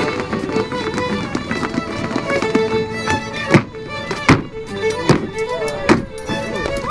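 Fiddle playing a traditional dance tune for rapper sword dancing. Four sharp knocks come about 0.8 s apart in the second half.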